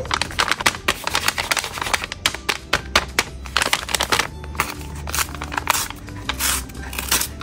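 A paper bag crinkling and rustling in the hands as it is squeezed and torn open: a dense run of irregular crackles.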